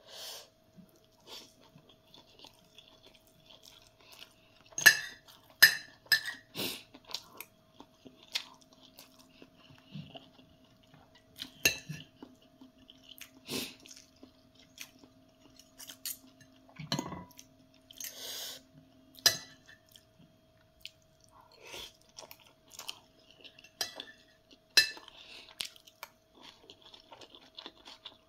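A person eating close to the microphone: chewing, with a metal fork and spoon clinking and scraping on a plate. Sharp clinks come every few seconds.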